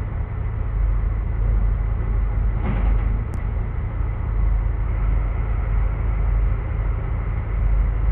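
Semi truck's diesel engine idling: a steady low rumble heard through the cab dashcam's microphone, with a short faint click about three seconds in.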